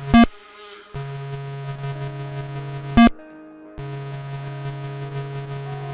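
White's Spectra V3i metal detector's audio: a steady low buzzing hum of interference noise picked up in a high-EMI setting. It is broken twice by a short, loud key-press beep, each followed by a brief drop-out, as the receive gain is stepped down from 8 to 6.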